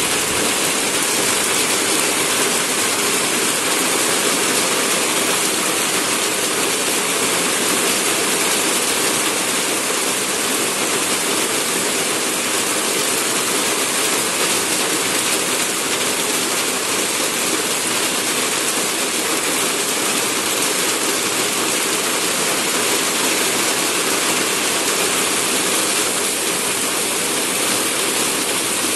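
Heavy tropical downpour: a loud, steady hiss of rain pouring onto the road, palm fronds and foliage.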